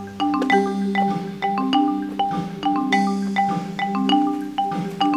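Soundtrack music: a quick, steady run of struck, ringing notes over held lower notes.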